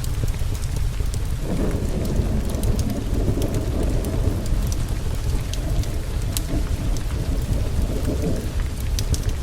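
Steady heavy rain with a long roll of thunder that starts suddenly about a second and a half in and dies away near the end. Scattered sharp ticks sound over the rain.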